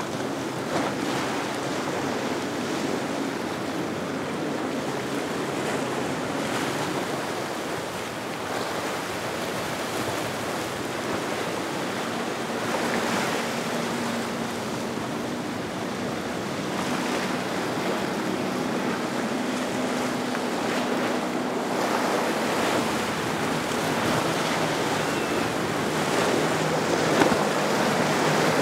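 Wind and surf in a choppy inlet, with the hum of passing boats' twin outboard motors running at speed through the waves. An outboard hum comes through about halfway in, and another builds near the end.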